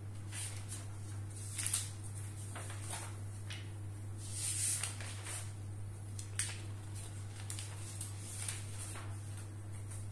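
Paper pages of a spiral-bound notebook being turned and handled, in several brief rustles and swishes. A steady low hum runs underneath.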